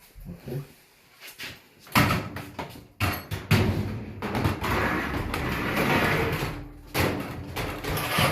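Sheet-metal clanks and knocks, then several seconds of scraping and rattling as parts of a disassembled Kenmore commercial dryer are handled.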